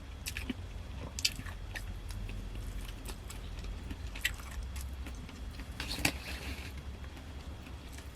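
A person eating: chewing, with scattered light clicks and scrapes of utensil and food container. A steady low hum runs underneath.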